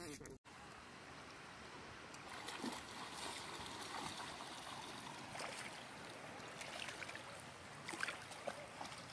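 Faint, steady wash of shallow seawater, with light splashes from an alpaca's legs as it wades.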